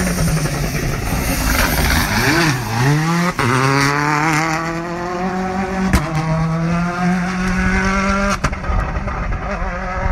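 Rally car engine passing at speed. About two to three seconds in the revs drop and wobble as the car slows. The engine then pulls hard, its pitch rising steadily for about five seconds before it cuts off sharply near the end, with a few sharp cracks from the exhaust.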